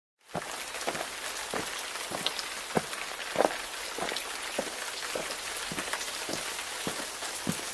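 Rain falling steadily: an even hiss with many separate drops striking a surface, starting suddenly about a third of a second in.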